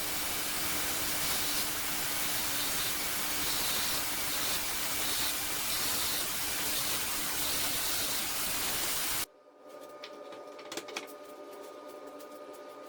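Steady even hiss that cuts off suddenly about nine seconds in, leaving quieter room tone with a few faint ticks.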